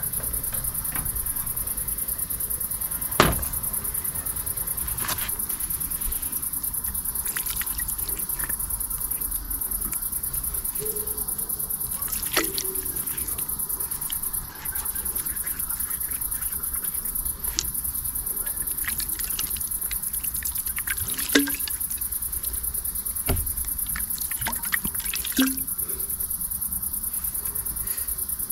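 Steady high-pitched insect chorus, most likely crickets, with sharp clicks and pops now and then.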